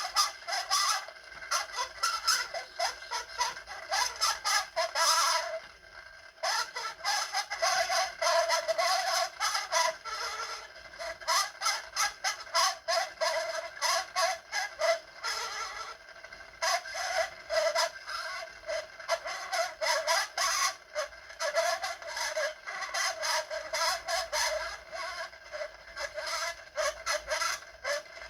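Walking Winnie doll's spring-driven phonograph singing through its small reproducer and horn: a thin, tinny, wavering voice with no bass. Its clockwork walking mechanism clicks and rattles rapidly throughout.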